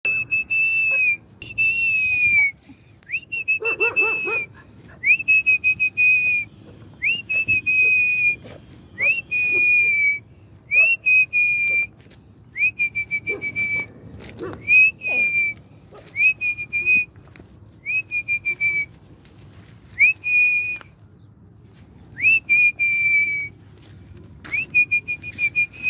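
A man whistling through pursed lips to call dogs: a long run of high single-pitch notes, each sliding quickly up and then held for about a second, repeated every second and a half or so. A brief lower sound breaks in about four seconds in.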